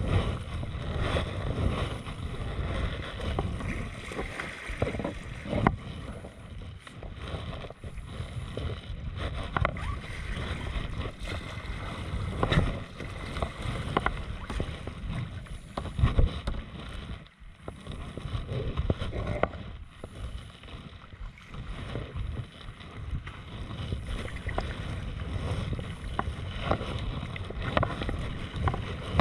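Sea water sloshing and splashing against the hull of a sea kayak as it is paddled through small waves, with irregular sharper splashes from the paddle strokes.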